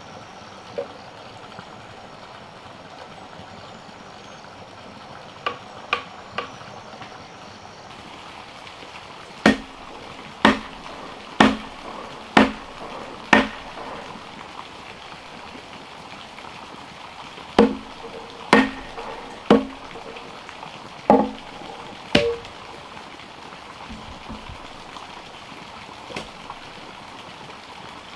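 A hand tool chopping into a log: two runs of five sharp blows, each about a second apart, with a short pause between the runs.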